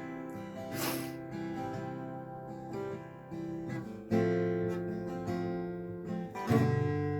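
Acoustic guitar strumming chords, with fresh strums about a second in, about four seconds in and again about six and a half seconds in.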